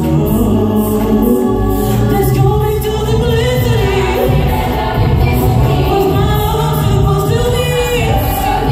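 A group of voices singing together, choir-like, with sustained low notes underneath.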